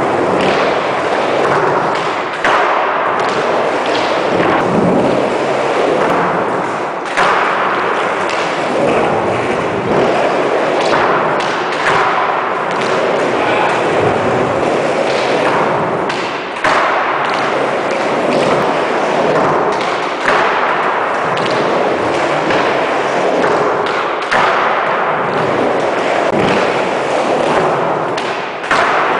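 Skateboard on a plywood bank ramp: wheels rolling over the wood, with a sharp board pop, landing or clatter every few seconds at irregular spacing.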